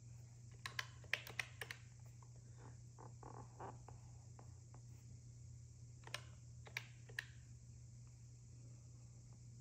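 Buttons of a desktop calculator with round retro-style keys being pressed while adding up figures: a quick run of about five light clicks about a second in, then three more spaced clicks around six to seven seconds in.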